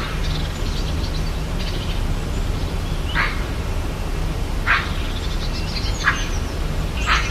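Rainforest ambience: a bird gives short, sharp calls, once at the start and then four more, each one to one and a half seconds apart, over fainter high chirping and a steady low background rumble.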